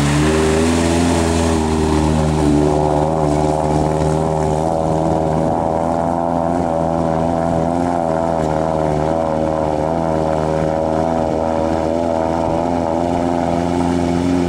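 An old soft-top Jeep's engine running steadily under load as it wades through shallow lagoon water, its note rising at the start and then holding with a slight waver, over the hiss of water splashing around the wheels.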